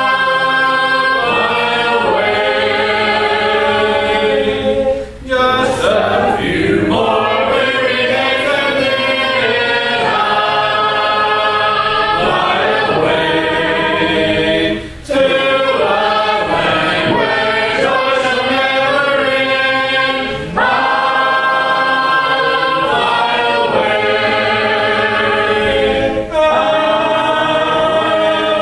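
A church congregation singing a hymn a cappella, unaccompanied voices in several parts, with long held notes and short breaks between the lines.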